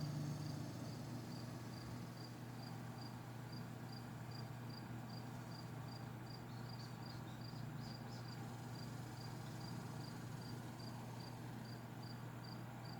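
Insect chirping at an even pace, about one and a half short high chirps a second, over a steady low hum.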